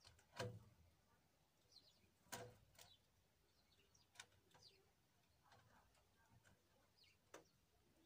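Near silence broken by about five faint, sharp taps as a great tit pecks at cake crumbs and grips the rim of a feeder box, with a few faint high bird calls in between.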